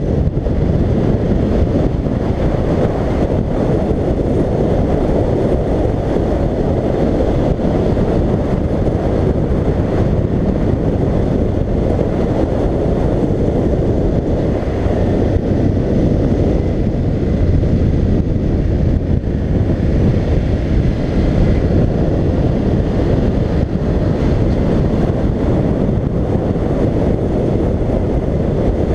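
Steady wind rush over a helmet-mounted camera's microphone on a motorcycle at road speed.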